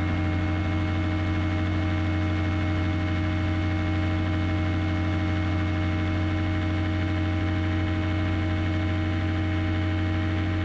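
Rebuilt Rotax engine and propeller of an ultralight aircraft droning steadily in flight, holding one constant low pitch with a stack of overtones.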